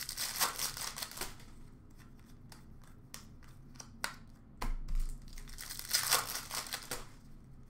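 Hockey card pack wrappers being torn open and crinkled, in two bursts: one right at the start and a longer one about five seconds in, with scattered light clicks between.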